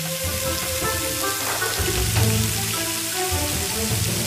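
Stinky tofu deep-frying in hot oil, a steady sizzle under background music with held notes.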